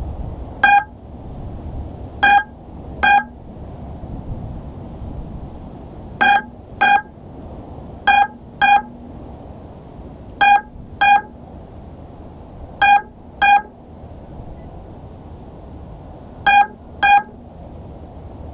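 Electronic beeper sounding short, high, identical beeps, mostly in pairs about half a second apart, with a pair every two to three seconds, over a low steady background noise.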